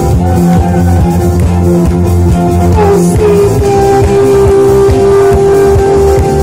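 Live rock band playing: strummed acoustic guitar, electric guitar, bass guitar and drum kit. About three seconds in, a long held note slides up into place, holds steady, and falls away near the end.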